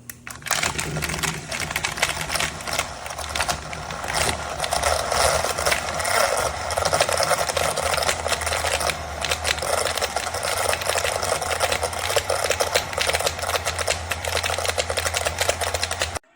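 Battery-powered portable personal blender running, a steady motor hum under a dense, rapid clattering rattle. It starts just after the opening and cuts off abruptly near the end.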